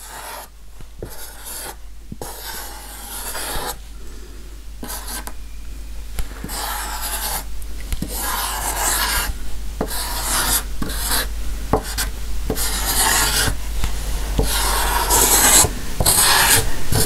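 Permanent marker being drawn across a painted tray surface in short, repeated scratchy strokes with brief pauses between them, the strokes getting louder toward the end.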